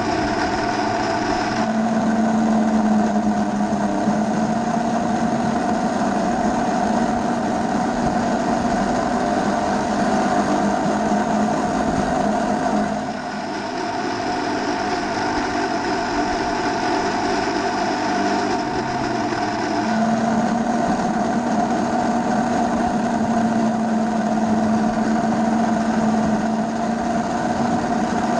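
Model train running along its garden track, heard from on board: a steady mechanical whine over rolling wheel noise. It dips briefly about thirteen seconds in, and its pitch shifts about two and about twenty seconds in.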